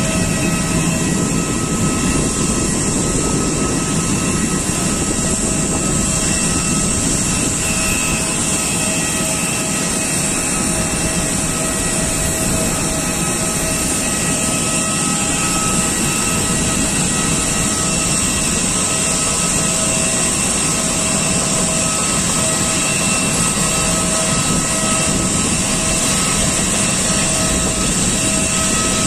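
Steady airliner jet turbine noise: a constant whine made of several held high tones over a low rush, with no change in pitch.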